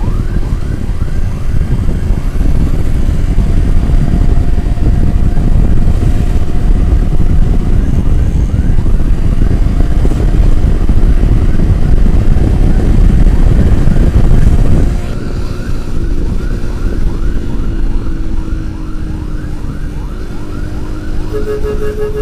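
Heavy wind rushing over the microphone of a moving motorcycle, with a siren-like electronic chirp rising in pitch and repeating about three times a second throughout. The wind noise drops sharply about fifteen seconds in.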